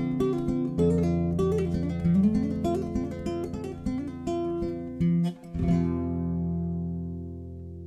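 Background music on acoustic guitar, strummed and picked, ending with a final chord about three-quarters of the way through that rings on and slowly fades.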